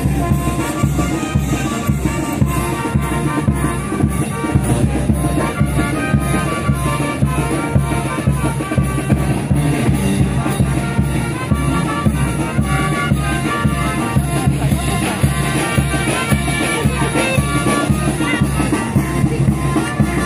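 Brass band with drums playing lively dance music with a steady, fast beat.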